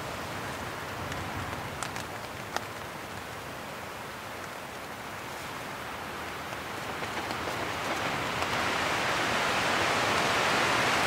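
Storm wind and rain beating on a North Face Triarch tent, heard from inside. A gust builds steadily louder over the last few seconds, and a couple of sharp taps sound about two seconds in.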